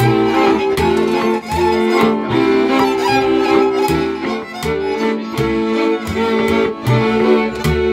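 Transylvanian string band playing a fast dance tune: a lead fiddle melody over off-beat chords from two brácsas and a bowed double bass (bőgő). Bass strokes and chords alternate in a steady dance rhythm.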